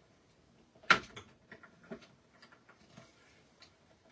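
Hard plastic knocks and clicks as the cutting plates and platform of a manual die-cutting machine are handled after a pass through the rollers: one sharp knock about a second in, then lighter taps and clatter.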